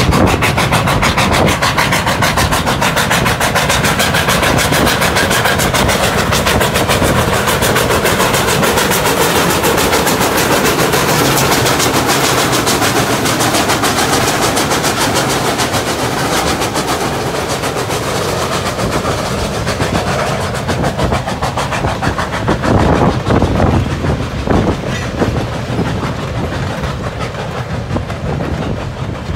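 Two steam locomotives, Strasburg Rail Road 89 and 90, working hard together at the head of a freight train. Their exhaust beats make a dense, steady chuffing over the train's rumble, which grows heavier about two-thirds of the way in.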